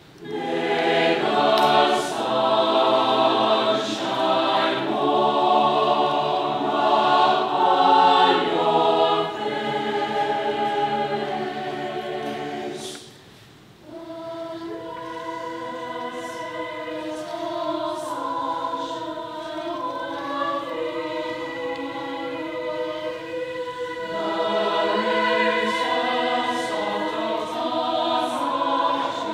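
Mixed choir of men's and women's voices singing in parts. It comes in strongly at the start, breaks off briefly about 13 seconds in, then resumes more softly and swells again near the end.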